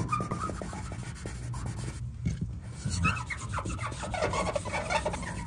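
600-grit sandpaper on a hand sanding block being rubbed back and forth over a wet painted pickup-bed panel, flattening a paint run. Quick rasping strokes, with a short pause about two seconds in.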